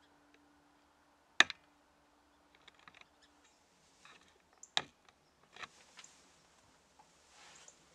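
Sharp clicks and knocks with light rustling, from handling of the camera close to the microphone as it pans and zooms, two louder clicks standing out about one and a half seconds in and again near five seconds.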